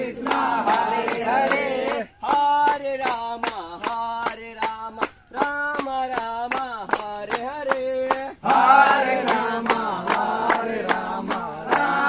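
A group of men chanting in unison while clapping their hands in a steady rhythm, about three claps a second. The sung lines are held on long notes and broken by brief pauses, and the voices sound fuller near the start and again from about two-thirds of the way in.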